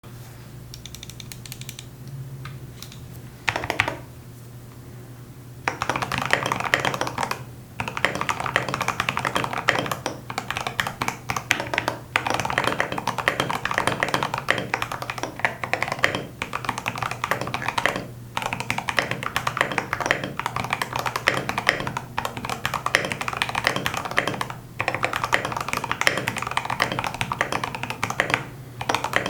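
Typing on a mechanical keyboard with manually lubed Drop Holy Panda X tactile switches and MT3 keycaps, in an NCR80 case stiffened and damped with silicone. There are a couple of keystrokes about three seconds in, then steady fast typing from about six seconds on, broken by short pauses.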